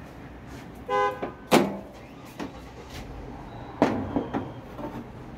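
Top panel of a Mabe top-loading washer being handled and set back down onto the cabinet: two sharp knocks, the second followed by a short clatter of smaller knocks. About a second in there is a brief honk-like tone.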